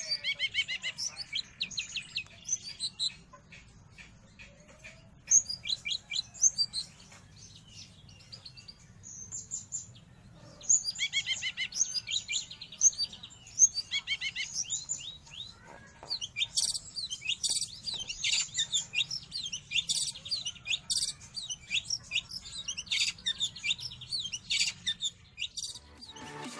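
Long-tailed shrike (cendet) singing: fast runs of high, scratchy chirps and twitters in bursts, with short pauses between them.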